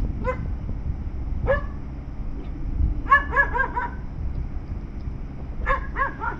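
A dog barking in short, sharp barks: single barks at first, then a quick run of four or five about three seconds in and another run of three near the end, over a steady low rumble.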